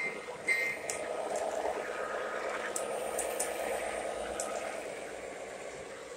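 O gauge model train, a Santa Fe warbonnet diesel with streamlined passenger cars, running past close by on three-rail track: a steady rolling rumble that swells from about a second in and eases off near the end. Two short high beeps sound in the first half second.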